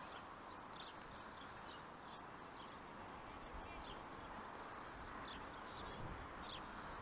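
Small birds chirping: many short, high, falling notes repeated every half second or so, over a faint steady background hiss of open-air ambience.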